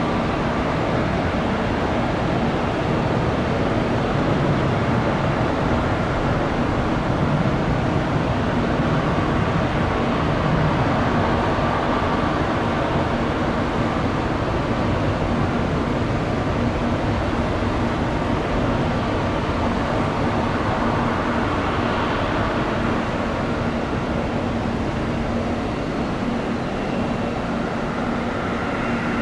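Boeing 757-200F freighter's twin jet engines running through a landing approach, touchdown and roll-out: a steady, fairly loud roar with a few steady whining tones over it, fading a little near the end.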